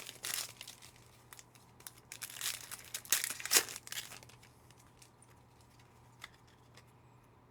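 Foil wrapper of a Panini Optic football card pack being torn open and crinkled, in bursts during the first four seconds, then only a few faint ticks.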